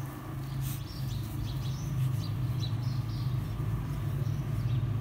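Dogs growling in play, a continuous low rumbling growl as the mother dog and her puppy wrestle and mouth at each other.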